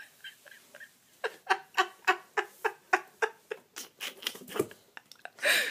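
A woman laughing hard: faint wheezy breaths at first, then a steady run of short voiced laugh pulses, about four a second, and a loud breathy gasp near the end.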